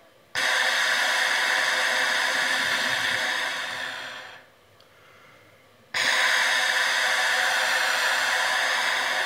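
Trumpet without its mute, blown right at the microphone: two long, breathy tones with the horn's ring in them, each about four seconds long. The first tapers away gradually over about a second as the air is simply let go, the way the teacher wants a note to end.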